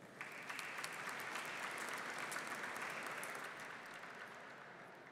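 Audience applauding, starting almost at once and dying down near the end.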